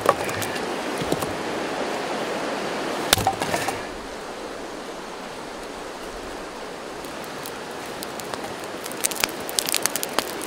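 Steady rushing of river water, stepping down in level about four seconds in, with a few sharp crackles near the end.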